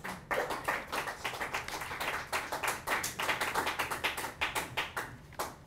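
A small audience applauding in a small room: a few seconds of brisk, uneven hand clapping that stops near the end.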